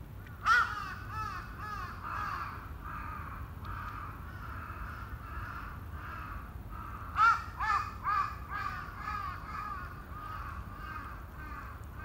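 Crows cawing in two runs of repeated calls, each run loudest at its start: one about half a second in, another about seven seconds in.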